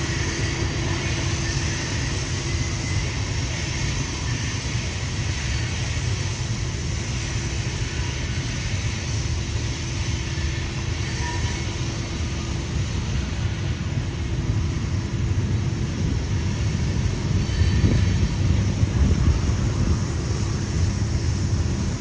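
Freight trains on the line: a steady low rumble that swells somewhat louder about two-thirds of the way through.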